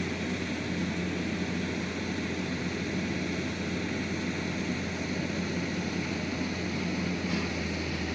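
Heavy diesel engine running steadily, a constant low hum under an even hiss.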